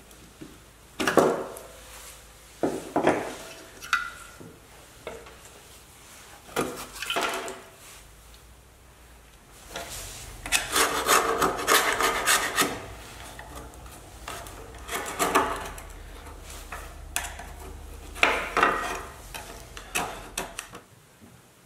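A thin metal tool scraping old residue off the inside of a classic Porsche tail-light cover plate, in separate strokes of about a second each, with a longer run of scraping of about three seconds near the middle.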